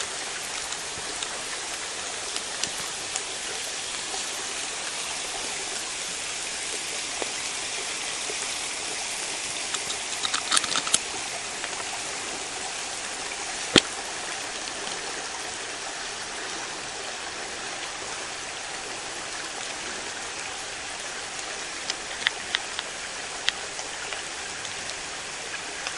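Night-time woodland ambience: a steady, even hiss with no pitched calls, and scattered sharp clicks. A quick cluster of clicks comes about ten seconds in, a single louder click shortly after, and a few more near the end.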